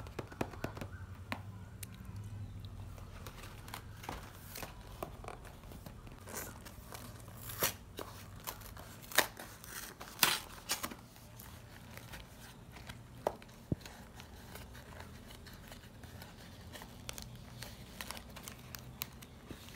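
Cardboard carton of Nutella B-ready bars being handled and opened by hand: scattered taps and clicks with short tearing and scraping rasps of paperboard, the loudest a pair about halfway through, over a faint steady low hum.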